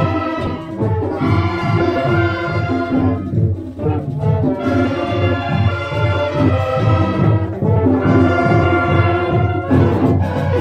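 School marching band (banda de paz) playing. Brass instruments carry the melody in sustained notes over a steady, evenly repeating drum beat.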